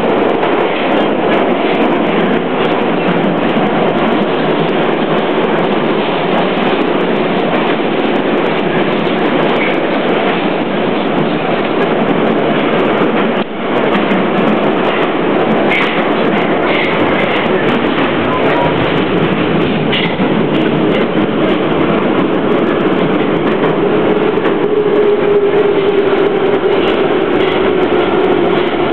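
Moscow Metro retro train running along the line, with a steady rumble of wheels on rail and scattered clicks. A short dip in the noise comes about halfway through, and near the end a whine slowly falls in pitch.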